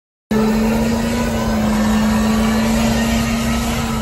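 A vehicle engine running at a steady, unchanging pitch under a wash of road and wind noise, heard inside the cab. It cuts in abruptly just after the start from dead silence.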